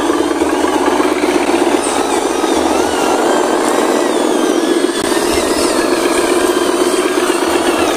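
Radio-controlled scale model dump trucks (a Hino 500 and a Fuso) driving loaded along a muddy track, giving a steady, engine-like drone with a fast pulse.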